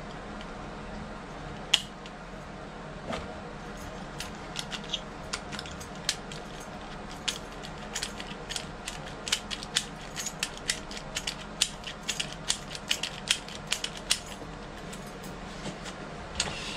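Metal storeroom-function knob lockset clicking as it is twisted in the hands: one sharp click about two seconds in, then a long run of quick, uneven ratcheting clicks.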